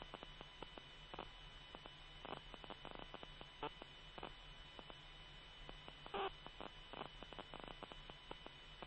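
Steady electrical hum with faint scattered clicks and crackle from an open helicopter radio channel between transmissions, with two brief louder blips about three and a half and six seconds in.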